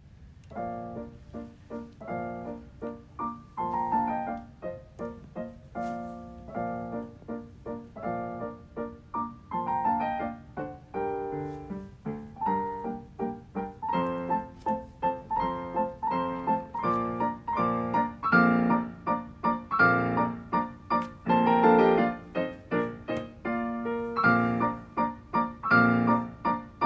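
Piano music: a lively tune played in a steady rhythm, growing louder about halfway through.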